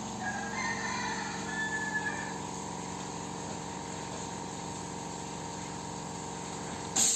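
A machine running with a steady mechanical hum, with a few faint squeaks in the first couple of seconds. A loud burst of hiss starts suddenly near the end.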